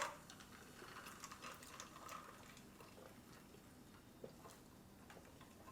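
Near silence: faint room tone with scattered small clicks, and one sharp click right at the start.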